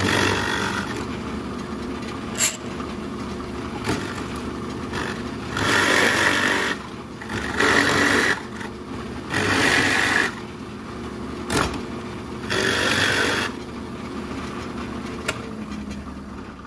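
Drill press running steadily with a Forstner bit, plunging into the wood about five times, each cut a second or so long and louder than the motor hum, with a few sharp clicks between. This is the bit hollowing out a carved decoy body half.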